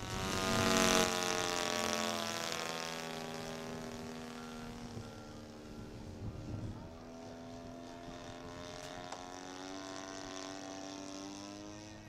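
Giant-scale radio-control model airplane's motor and propeller at high power as it takes off and climbs away: loudest about a second in as it passes close, then fading with distance, its pitch rising slightly near the end.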